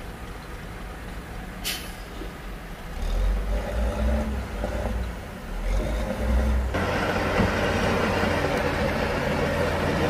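Heavy diesel earthmoving machinery at work. A short sharp hiss comes near two seconds in. A low engine rumble starts surging about three seconds in, and from about seven seconds the engine sound gets suddenly louder and runs on steadily.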